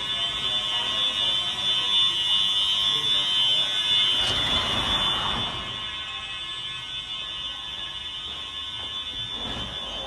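Space Age fire alarm horns sounding a continuous high-pitched tone during an alarm test. A brief rush of noise comes about four seconds in, and the alarm grows fainter from about six seconds in.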